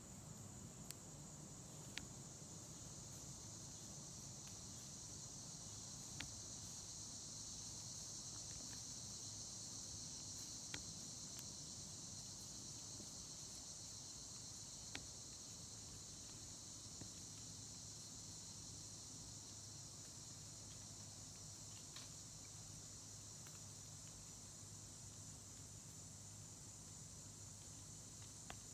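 Steady high-pitched chorus of insects, swelling a little in the middle and easing off again, with a few faint sharp ticks scattered through it.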